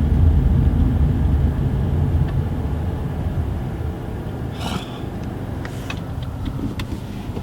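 Car rumble heard from inside the cabin, fading steadily as the car slows, with a brief rustle and a few small clicks in the second half.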